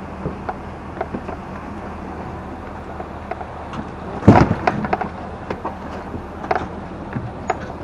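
A boat riding on its trailer behind a tow vehicle: a steady low rumble of road and engine noise with frequent rattles and clicks, and one loud thump about four seconds in.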